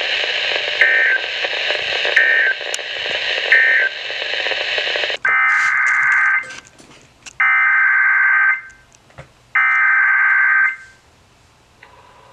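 Weather radio static for about five seconds, with three short chirps in it. Then three roughly one-second bursts of screechy two-tone SAME digital data, about a second apart: the End of Message code that closes the flood warning broadcast.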